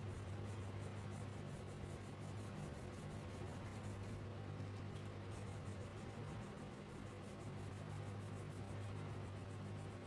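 Crayon scratching on paper in quick back-and-forth colouring strokes, over a steady low electrical hum.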